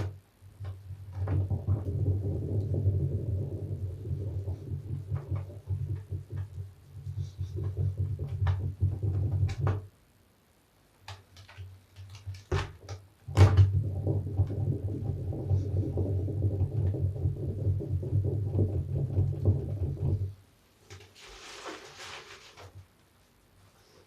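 A large soapy bath sponge, lathered with soap scraps, being squeezed and kneaded by hand close to the microphone. The wet squelching and crackling of the foam comes in two long spells, with a few sharp clicks between them and a brief hiss near the end.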